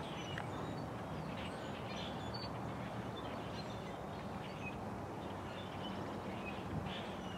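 Scattered short bird chirps over a faint, steady low drone from the distant approaching diesel locomotive.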